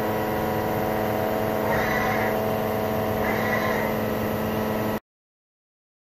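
DMG Mori DMU 80 eVolution linear 5-axis CNC machining centre running with a steady machine hum of several tones. Two short, higher whirring passages come about two and three and a half seconds in, and the sound cuts off after about five seconds.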